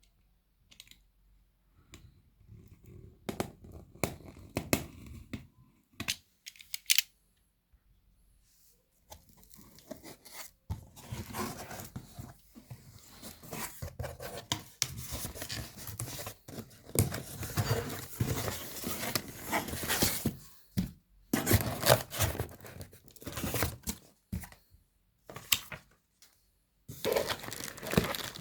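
Packaging being torn and crumpled by hand, in irregular bursts and clicks with short pauses. It is sparse at first and busier about halfway through.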